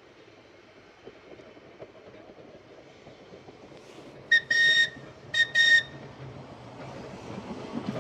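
Manx Electric Railway electric tram sounding its whistle: two short, high blasts about a second apart, midway through. Under them the rumble of the approaching tram's wheels and motors grows steadily louder.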